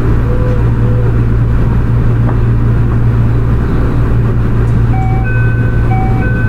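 Toei 6300-series subway train running steadily, heard from inside the car: a loud, even low rumble of wheels and running gear. About five seconds in, a short chime of stepped electronic tones begins over it.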